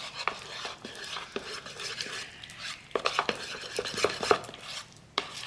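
A utensil stirring waffle batter in a mixing bowl, scraping and clinking irregularly against the bowl, with the clinks coming thicker in the second half.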